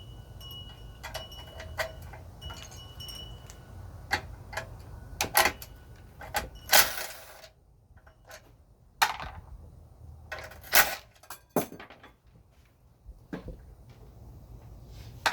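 Hand tools working on metal parts during a generator teardown: scattered metallic clicks and clinks, with a few louder scraping strokes about a third of the way in and again near the middle.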